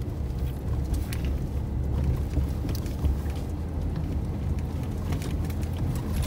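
Off-road SUV's engine running with a steady low rumble, heard from inside the cabin while it drives over a muddy, rutted track, with a few short knocks and rattles from the bumps.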